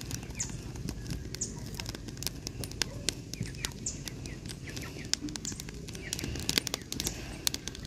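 A small wood fire of kindling and split wood crackling, with many sharp snaps and pops scattered throughout. A few faint high bird chirps sound in the background.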